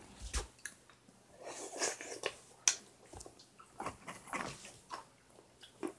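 Soft breathing and mouth noises of someone eating ice cream close to the microphone, broken by a few short, sharp clicks and knocks.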